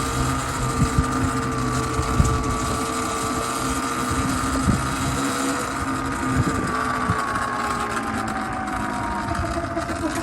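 A small motor running steadily with a constant whine that drifts slightly in pitch. Short knocks and rattles are scattered through it.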